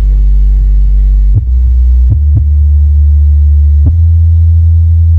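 Large subwoofer cabinets playing very loud, deep bass: held low notes that shift pitch about a second and a half in, twice more a little after two seconds, and again near four seconds, with almost nothing above the bass.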